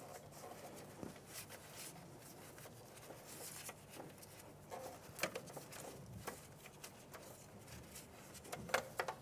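Faint handling noises of a rubber vacuum hose being routed by gloved hands: soft rustling with scattered light clicks, a few sharper clicks near the end.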